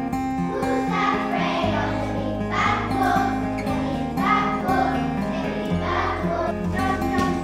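A group of young children singing a song together over instrumental backing music with a steady bass line.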